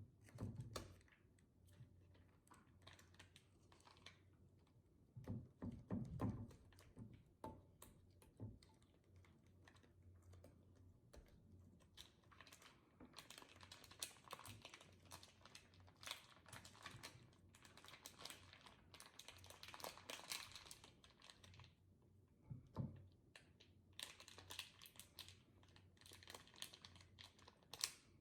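Slime being squeezed and stretched by hand, giving faint sticky clicks and crackles, with a few soft thumps.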